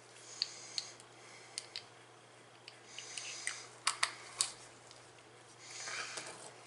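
Irregular small clicks and taps of a paint bottle and its cap handled in nitrile-gloved hands, with a couple of stretches of soft rustling.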